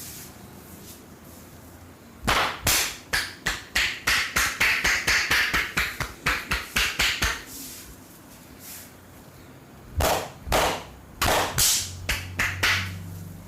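Barber's hands slapping in rapid percussive massage strokes on oiled skin: a fast run of about twenty sharp slaps at roughly four a second, a pause, then about five more near the end.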